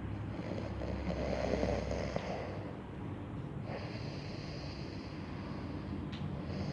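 Snoring in sleep: two drawn-out snoring breaths, the first about a second in and the second starting just past halfway.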